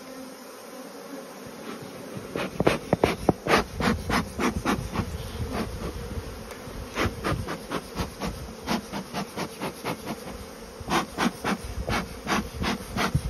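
Agitated honeybees buzzing in numbers around an opened hive, a steady drone with a hum in it. From about two seconds in, a quick irregular run of sharp ticks or taps sounds over it, pauses, and comes again near the end.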